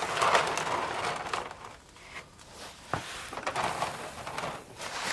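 Milky, water-contaminated engine oil draining from the oil pan's drain hole and splattering into a drain pan, in uneven spurts, with a sharp tick about three seconds in.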